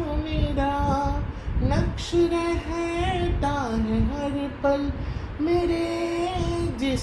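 Solo voice singing a Hindi film song melody: held notes joined by pitch bends and slides, over a musical backing with a pulsing low beat.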